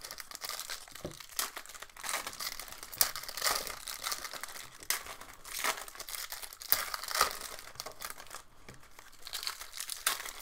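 Trading-card packaging, plastic and foil wrapping, being torn open and crinkled by hand: irregular crackling and ripping with no steady rhythm.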